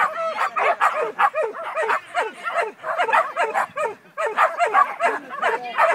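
Dog barking fast and repeatedly, short high yapping barks several a second, pausing briefly about four seconds in.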